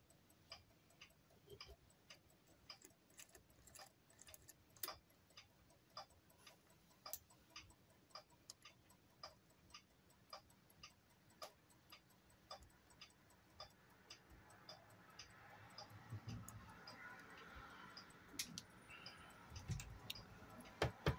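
Faint, steady ticking, about two ticks a second, typical of a clock ticking in the room. From about two-thirds of the way through, soft rubbing and handling noise and a few low knocks join in, with a sharper click near the end.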